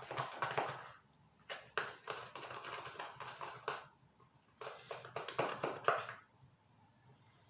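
Homemade marshmallow slime being stirred and worked, making wet, crackly clicking and squishing sounds in three bursts, the last ending about six seconds in.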